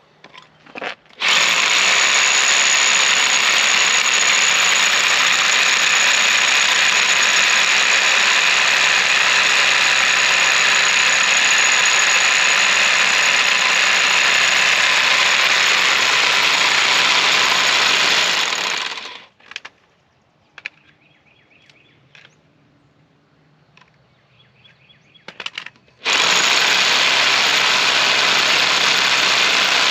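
Bauer hammer drill hammering into concrete, running at a steady high whine. It stops about 19 seconds in, leaving a few light clicks, and starts up again about 7 seconds later. The owner thinks it sounds like it is wearing out and running hot.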